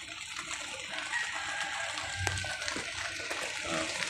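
Quiet outdoor background with a few short, faint calls and a single sharp tap about two seconds in.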